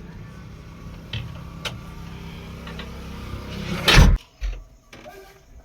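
Diesel engine of a JCB 3DX backhoe loader running steadily, then a single loud bang about four seconds in, after which the sound drops.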